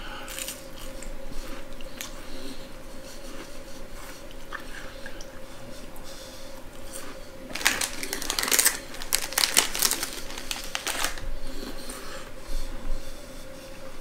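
Crunching and chewing of a crisp cheese cracker. About halfway through, a plastic snack wrapper crinkles loudly for a few seconds as it is handled to take out another cracker.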